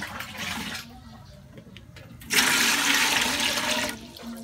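Water poured from a scoop into the base of an aluminium steamer pot, a loud splashing rush lasting under two seconds about halfway through. A brief knock comes right at the start.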